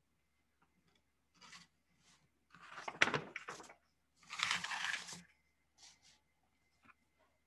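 Scattered rustling and crinkling noises in a few short bursts, with a soft knock about three seconds in and the longest burst about a second after it.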